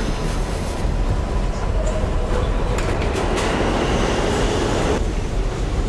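New York City subway train running, a steady low rumble with some rattling.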